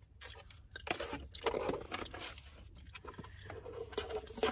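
Plastic shampoo and conditioner bottles being picked up and handled: a string of faint irregular clicks, taps and rustles.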